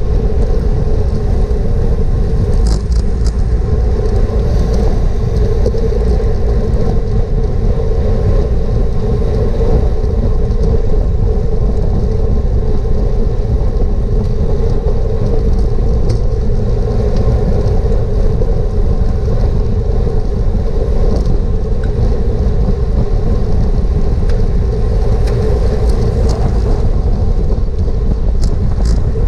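Steady, loud wind rush and rumble on a bike-mounted GoPro's microphone while racing at speed, with a steady tyre hum and a few faint clicks about three seconds in and near the end.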